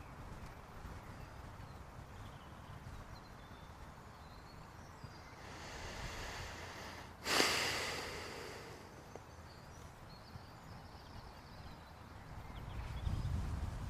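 A person's breath: a soft intake, then a sudden long exhale about seven seconds in that fades away over a second or so, over a faint low rumble.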